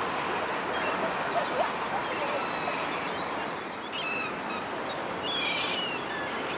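Steady hubbub of many people talking across an open square, with small birds chirping over it, the chirps busiest about four to six seconds in.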